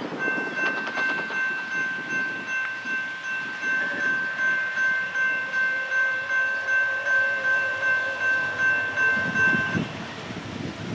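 Air horn of a GE AC44C6M diesel locomotive, a chord of several notes, sounding one long blast that stops about a second before the end. The low rumble of the oncoming train rises as the horn ends.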